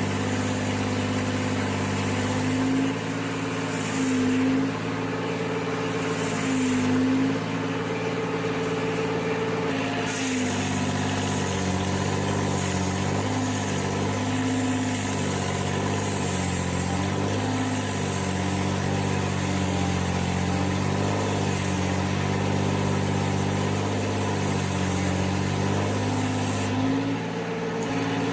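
Engine running steadily, its pitch wavering and dipping briefly several times as the load changes.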